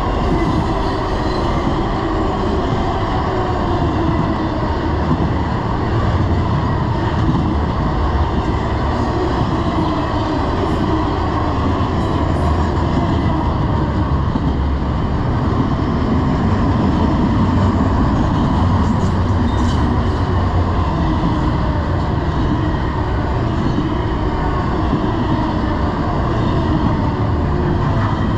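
Intermodal freight train's cars rolling past at close range: a steady, loud rumble and clatter of steel wheels on rail under trailer flatcars and double-stack container cars.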